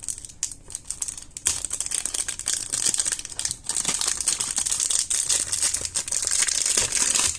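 Plastic shrink-wrap crinkling and tearing as it is peeled off a small cardboard box. A few faint clicks come first, then about a second and a half in a dense, continuous crackle sets in.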